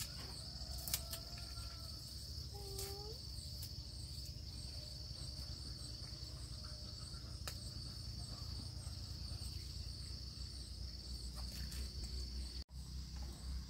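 Insects chirring in a steady high chorus, over a low rumble. The sound breaks off for an instant near the end.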